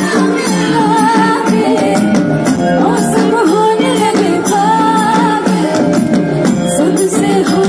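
Live concert music: a female vocalist singing a wavering melody over a band's accompaniment, with a steady percussive beat.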